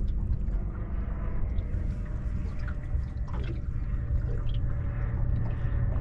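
Water lapping and gurgling against a small boat's hull, with small splashy ticks, over a steady low rumble and a faint hum.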